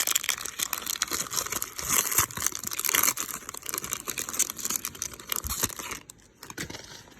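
Foil wrapper of a 2021 Series 2 retail baseball card pack being torn open and crinkled. The dense crackling stops about six seconds in.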